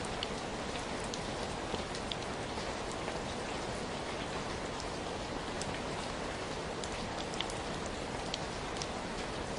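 Steady rain falling, an even hiss with scattered sharp drips and taps of individual drops landing on nearby surfaces.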